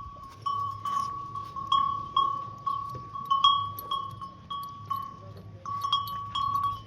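A metal bell ringing in quick, uneven strokes, about two a second, each giving the same steady high ring.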